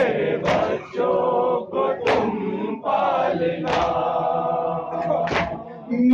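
A group of men chanting an Urdu noha (Shia lament) together in a sung, chant-like unison. Sharp strikes, in keeping with matam (chest-beating), mark the rhythm about every second and a half.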